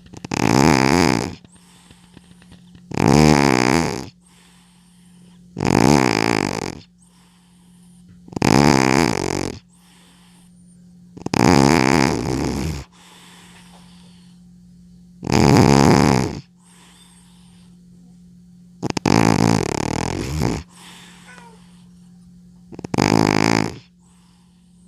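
An old cat snoring loudly in its sleep. A rattling snore comes roughly every three seconds, eight in all, with fainter breaths between. A steady low hum runs underneath.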